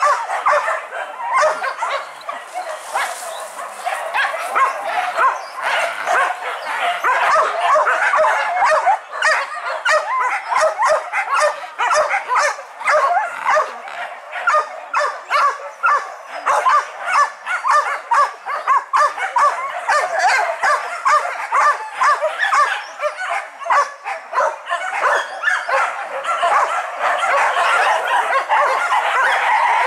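A pack of boar-hunting dogs barking and yelping without a break, many calls overlapping.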